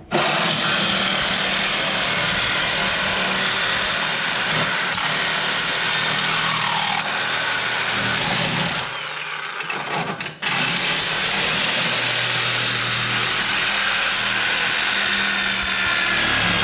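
A power tool's motor running hard in two long stretches, easing off and stopping briefly about nine seconds in before starting again.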